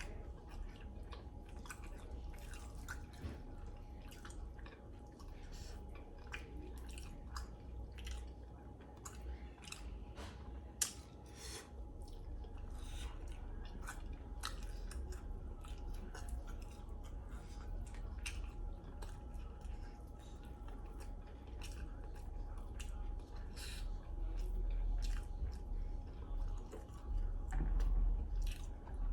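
A person chewing and eating sauce-covered chicken wings close to the microphone: irregular wet clicks and mouth smacks throughout.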